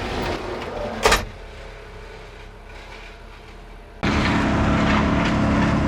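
Engine running steadily, with a sharp click about a second in; the engine sound then drops away and comes back abruptly and louder about four seconds in.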